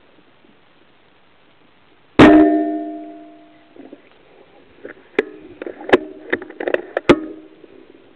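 A single rifle shot, sudden and loud, with a ringing metallic tail that dies away over about a second. A few seconds later comes a quick run of sharp clicks and knocks with the same ringing.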